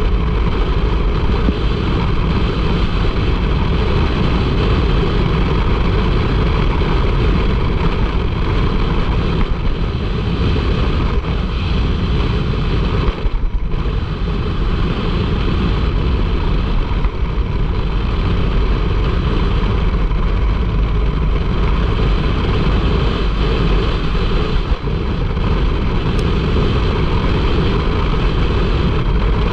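Turbocharged side-by-side UTV driving along a dirt road, its engine and driving noise running steadily, with one brief dip near the middle.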